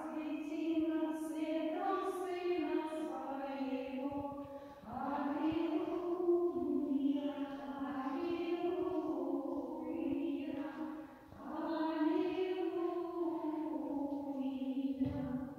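Slow liturgical chant sung by a small choir of voices, mostly on long held notes, in three phrases separated by short breaths.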